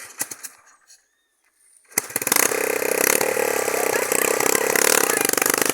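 Small motorcycle engine starting about two seconds in and running loudly and steadily with a fast, even beat.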